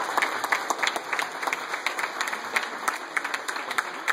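Audience applauding: many hands clapping at once, with sharp individual claps standing out of the steady patter.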